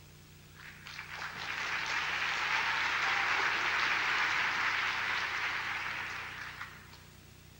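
Audience applauding: clapping builds over the first two seconds, holds, then dies away near the end.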